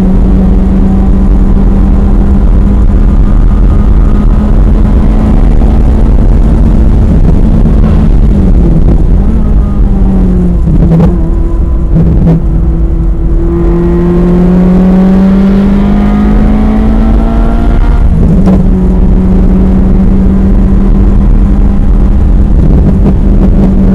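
Ferrari F355 Challenge's 3.5-litre V8, loud inside the cabin. It first holds steady high revs on a straight, then the revs fall as the car brakes for a corner, with a few sharp gear-change blips. Under hard acceleration the pitch climbs, drops at an upshift, and then holds steady high revs again.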